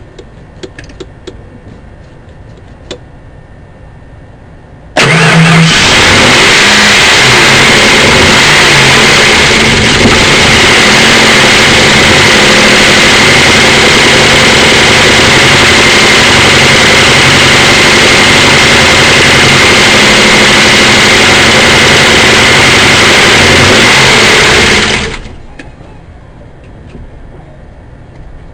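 1992 Ford Crown Victoria's 4.6-litre V8 cranking on its starter motor for about twenty seconds without catching: a steady starter whine over an even chugging, starting about five seconds in and stopping near the end. It is a no-start. A few faint clicks come before the cranking.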